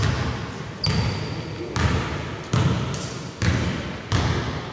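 Basketball being dribbled on an indoor court: about six bounces a little under a second apart, each trailing off in an echo, with a brief high squeak about a second in.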